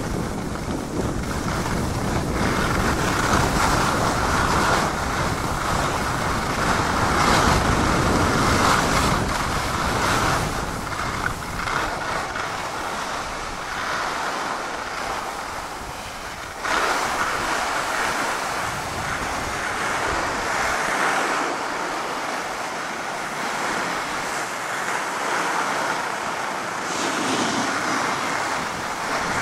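Steady rushing scrape of a snowboard sliding over packed snow while riding downhill, with wind buffeting the microphone. The noise dips briefly a little over halfway through and then picks up again.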